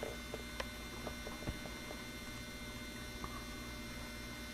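Low steady electrical hum with a few faint ticks.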